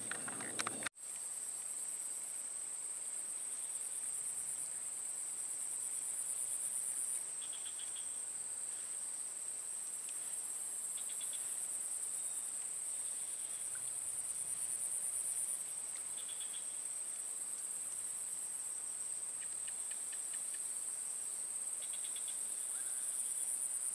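Steady high-pitched chorus of insects, trilling with a fine pulsing texture. A few faint short chirps come and go over it.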